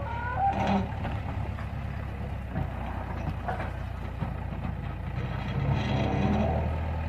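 JCB 3DX backhoe loader's diesel engine running steadily at a low speed. A few short higher sounds come through about half a second in and again after about three and a half seconds, and the engine grows a little louder near the end.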